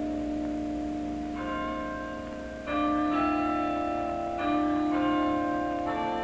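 Bells playing a slow tune. A new note is struck every second or so, and each one rings on under the next.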